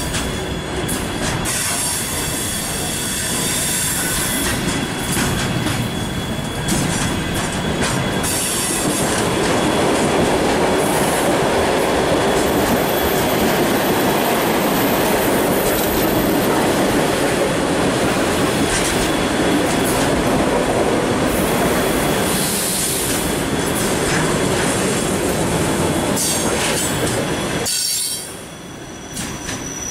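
Loaded container flat wagons of a freight train rolling past at close range: the steady noise of steel wheels on the rails, growing louder about a third of the way in and dipping briefly near the end.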